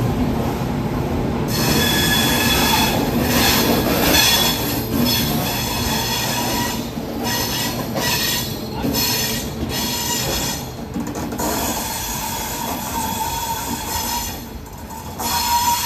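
Passenger train coaches rolling past close by, with a steady rumble of the running gear and high, ringing wheel squeal that starts about a second and a half in and comes and goes.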